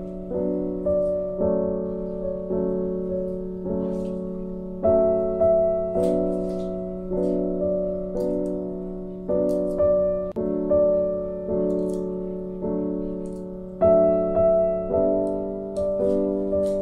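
Background piano music: gentle notes struck about one or two a second, each ringing and fading before the next.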